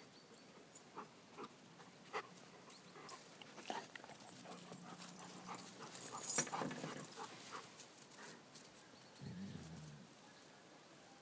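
A German shepherd and a smaller dog play-fighting: scattered short dog sounds and scuffles, busiest around six seconds in, with a low pitched dog sound about nine seconds in.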